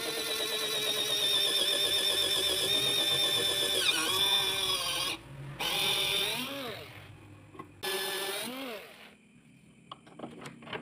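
Electric drill motor whining steadily as the bit bores through stacked plastic discs, its pitch sagging about four seconds in as the bit bites. It then stops and gives two short bursts, each spinning up and winding down, followed by a few light clicks near the end.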